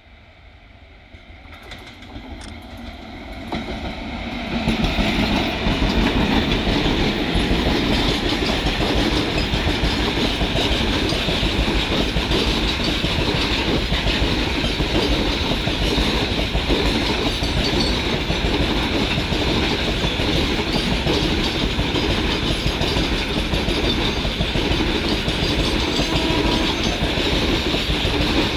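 Freight train hauled by twin WCAM-3 electric locomotives approaching and passing at speed, building up over the first five seconds. It then runs on as a loud, steady rumble of its covered wagons' wheels on the track.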